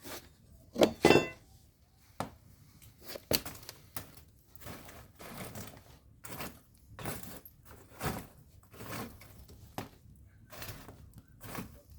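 Wood fire in a fireplace crackling, with irregular sharp pops about every half second to a second; a loud cluster of cracks comes about a second in.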